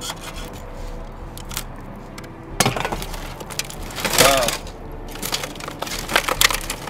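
Clicks, clatter and knocks of a shattered laptop's broken plastic and metal pieces being handled and pried at, with a sharper knock about two and a half seconds in and another just past four seconds.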